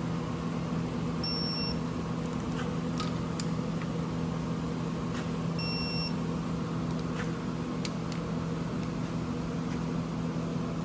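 Two short electronic beeps about four seconds apart, typical of a digital torque wrench signalling that a rocker arm bolt on an LS V8 has reached its set torque. A few light metallic ticks of tools on the engine sound over a steady low hum.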